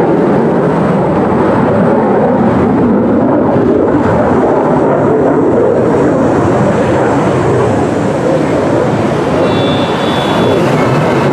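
Loud, steady jet noise from an F-35 fighter's single Pratt & Whitney F135 afterburning turbofan as the jet flies overhead.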